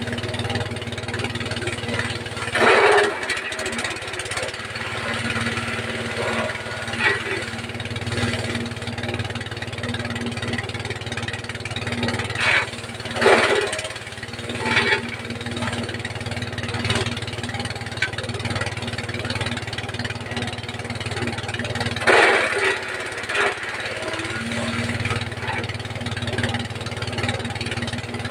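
Small 5.5 hp diesel engine driving a forage chopper machine, running steadily, with short louder bursts several times as it chops.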